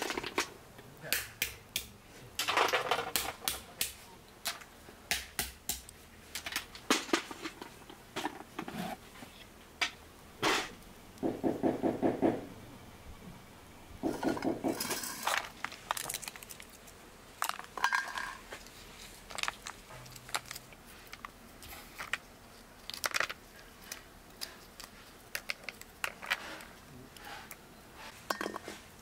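Walnut shells cracking by hand, with shells and pieces clattering onto a metal tray in irregular sharp clicks and cracks. A brief voice-like sound comes about eleven seconds in.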